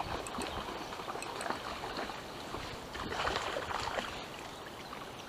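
Steady rush of a small river's flowing water.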